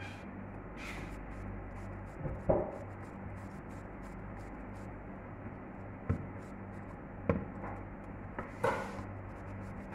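A handful of sharp knocks of a spoon and plastic blender jar against a stainless steel pot as banana batter is scraped in and stirred, over a steady low hum.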